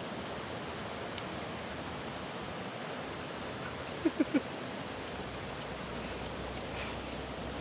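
An insect chirping in a steady, rapid high pulse. About four seconds in, three short quick calls from a small animal cut across it.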